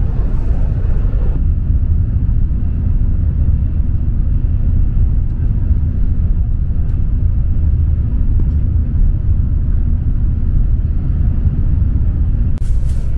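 Steady low rumble of a Sakura Shinkansen (N700 series) bullet train running at speed, heard from inside the passenger cabin. A few sharp clicks come near the end.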